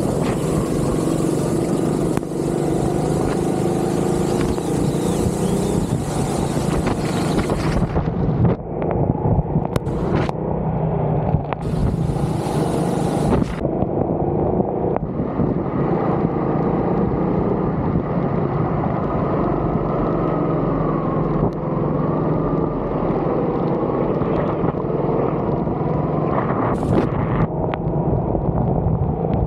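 Go-kart engine running at speed, heard from on board, its pitch rising and falling as it revs up and eases off. A high hiss lies over it for the first eight seconds or so and comes back in short spells.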